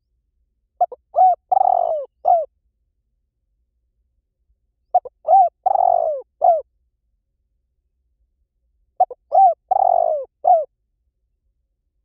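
Spotted dove cooing, the call used to lure wild doves: three identical phrases about four seconds apart. Each phrase is a couple of short coos, a longer falling coo and a short closing coo.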